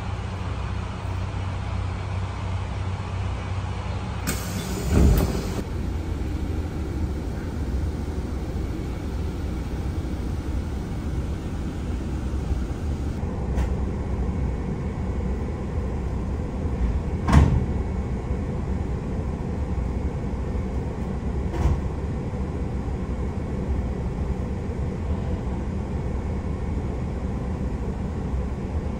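Inside a KiHa 185 series diesel railcar: the steady low hum of its diesel engine, with a thud and rattle about five seconds in, a sharp knock near the middle and a fainter knock later.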